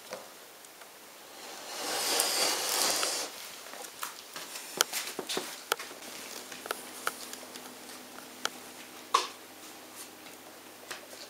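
A burst of rustling that lasts a second or two, then scattered sharp clicks and taps. The loudest tap comes about nine seconds in.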